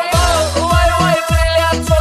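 Background music with a steady electronic beat: deep kick-drum hits that drop in pitch, under a held melody.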